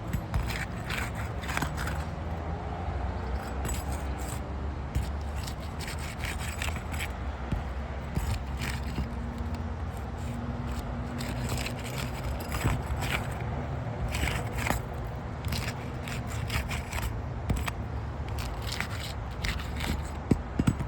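3-tab asphalt shingles being pried up and unsealed from their adhesive strips: irregular scraping and crackling as each tar seal is broken, going on in short strokes throughout.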